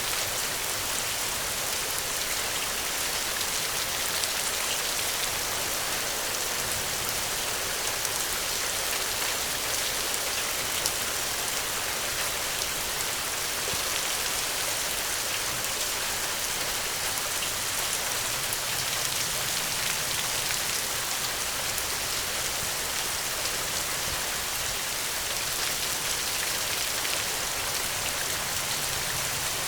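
Steady rain falling on surfaces, an even hiss with scattered individual drop ticks.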